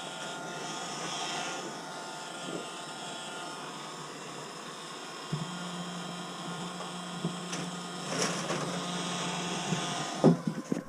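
Electric heat gun running steadily, blowing hot air to thaw a frozen water line and regulator. A lower steady hum joins about five seconds in, and a few knocks come near the end.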